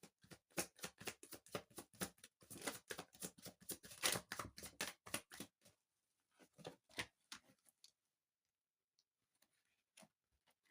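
Tarot cards being shuffled: a fast run of light, papery flicks and clicks for about five and a half seconds, then a few slower ones as the shuffling tails off.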